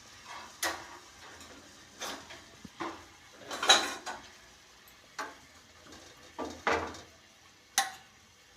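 A metal spoon clinking and scraping on a tava (griddle) while melted jaggery and grated ginger are stirred together. About nine irregular short knocks and scrapes, the longest near the middle.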